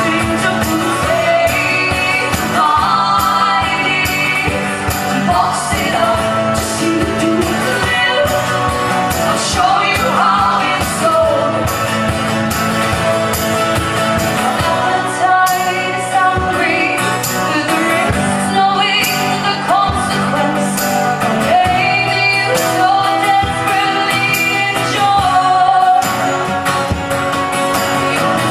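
Live song with singing over guitar and a steady percussive beat.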